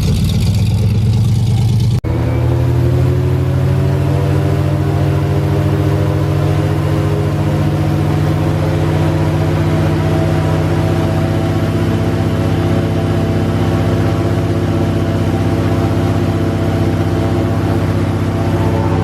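Airboat engine and propeller running loud and steady. After a sudden break about two seconds in, the pitch climbs a little as it speeds up, then holds even.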